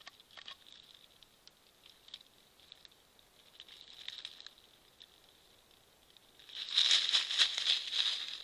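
Raccoon dog moving in dry leaf litter: scattered crackles and short rustles as it forages, then a louder stretch of crackling rustle about six and a half seconds in as it walks off through the leaves.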